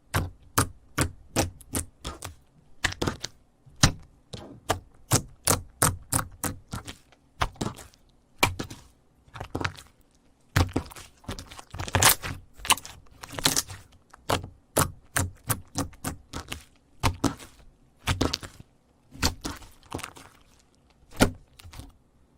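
Slime being worked by hand, giving a steady run of sharp clicking pops, about two a second, with a few short pauses.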